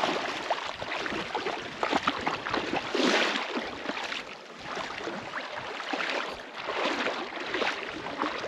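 Wading through shallow seawater, a dog and a person: irregular splashing and sloshing of legs moving through the water, louder for a moment about three seconds in.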